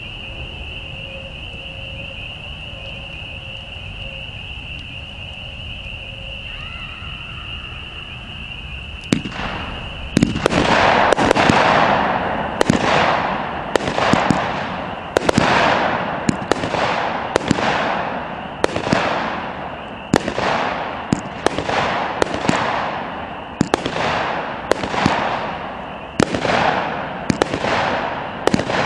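A 200-gram, 25-shot firework cake firing. For its first nine seconds there is only a steady high-pitched tone. Then comes a single shot, and from about ten seconds in a rapid run of shots, roughly one a second. Each shot trails off in a fading crackle of glitter.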